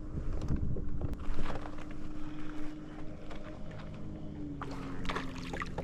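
Steady low hum of a boat motor, dropping slightly in pitch about four and a half seconds in, with scattered light clicks and knocks over it.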